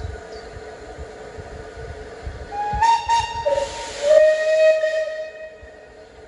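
Steam locomotive whistle blowing: a short higher note about three seconds in, then a longer, lower note with a hiss of steam, dying away about two seconds later.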